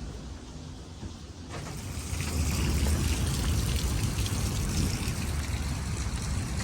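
Heavy storm rain and gusting wind. The noise rises abruptly about a second and a half in, with a low rumble of wind buffeting the microphone.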